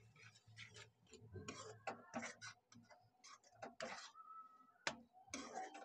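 Metal spatula scraping and tapping against a steel kadhai while stirring a thick masala: a run of faint, irregular clicks and scrapes.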